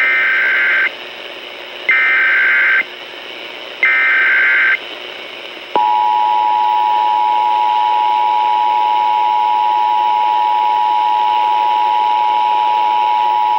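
Emergency Alert System tones over AM radio: three short bursts of SAME digital header data, each about a second long with about a second between them, then about six seconds in the steady two-tone EAS attention signal (853 and 960 Hz together) starts and holds for about eight seconds. The attention signal marks an alert whose message follows.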